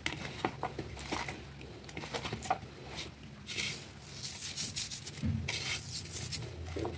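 Hands mixing raw fish steaks and cut vegetables on a ceramic plate: scattered light clicks of the pieces against the plate and a few short rubbing noises.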